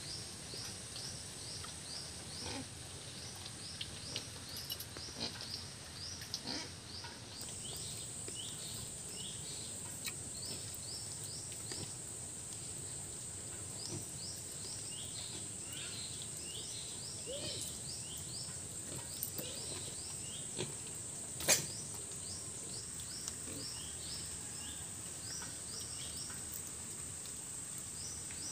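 Outdoor insect chorus: a steady, high-pitched insect drone with a run of quick, repeated short chirps over it. There is one sharp click late on.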